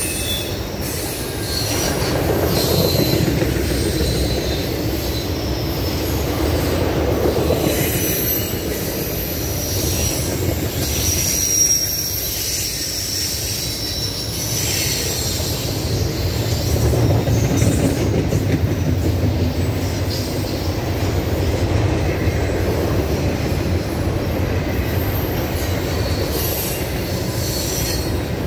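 Norfolk Southern double-stack intermodal freight train rolling past: a steady rumble of steel wheels on the rails, with short, irregular high-pitched wheel squeals over it.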